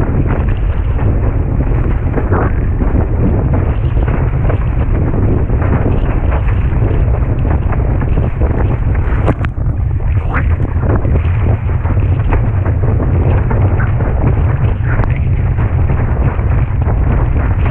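Heavy wind buffeting an action camera's microphone on a planing windsurfer, a steady low rumble, with water rushing and splashing beneath the board and short splashes as it crosses the chop.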